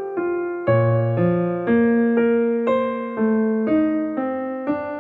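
Gentle piano music: single notes and chords struck about twice a second, each fading before the next.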